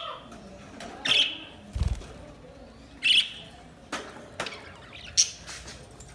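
Budgerigars chirping in short separate calls, a few seconds apart. A low thump comes just under two seconds in.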